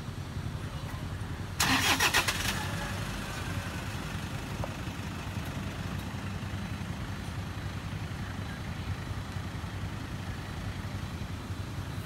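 An engine starts with a short loud burst about two seconds in, then runs with a steady low rumble.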